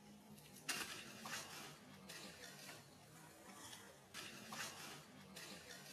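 Rustling and crunching in dry leaf litter and undergrowth, in several short, irregular bursts a second or so apart, as something moves over the leaves.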